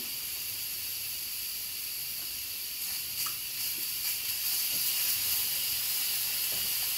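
Instant Pot electric pressure cooker at pressure, letting out a little steam with a steady, high hiss that grows slightly louder about halfway through. A small seep of steam while pressure cooking, which the owner says happens from time to time and is totally fine.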